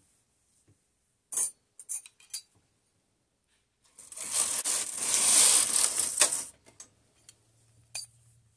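Brother 965i standard-gauge knitting machine carriage pushed across the needle bed: a metallic sliding rattle lasting about two and a half seconds. It comes after a few short clicks about a second and a half in, and there is one more click near the end.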